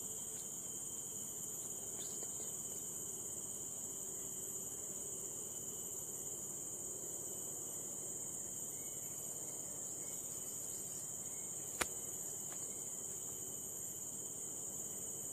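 Steady, high-pitched chorus of forest insects, droning without a break. A single sharp click sounds about twelve seconds in.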